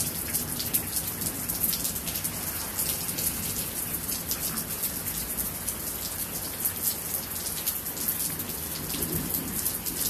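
Steady rain falling, with a dense stream of sharp ticks from close drops striking surfaces.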